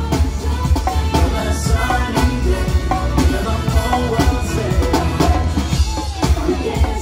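Upbeat show song with singing and a steady drum beat over a heavy bass.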